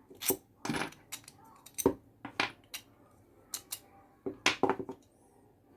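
Small hard objects, metallic by their ring, clicking and clinking together: a dozen or so sharp clicks in irregular clusters with short gaps between them.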